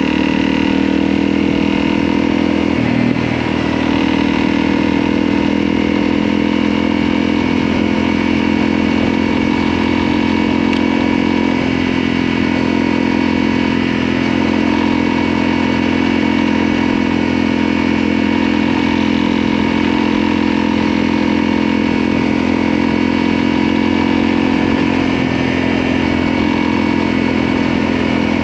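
Motorcycle engine running steadily while riding, with a brief change in pitch about three seconds in.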